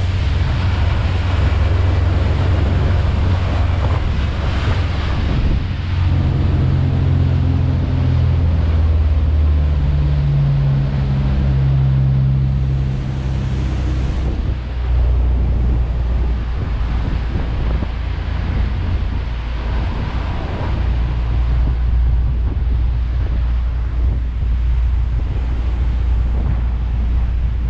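Wind buffeting the microphone over the rush of water along the hull of a Sea Ray 480 Sedan Bridge cruising at speed, with the low drone of its twin engines underneath. The engine hum stands out more clearly for several seconds about a third of the way through.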